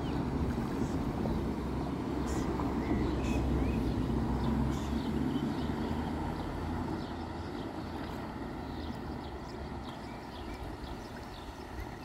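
Outdoor pond ambience: a steady low rumble throughout, with faint, short high-pitched bird chirps scattered over it.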